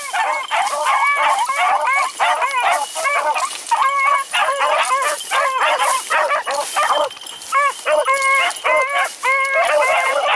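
A pack of beagles baying without a break, several voices overlapping in a continuous chorus of drawn-out, arching bawls. This is hounds giving tongue as they run a rabbit's scent track.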